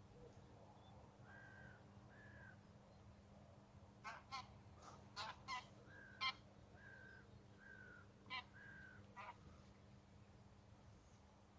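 Canada geese honking, faint, in a scattered series of short calls that come thickest from about four to nine seconds in.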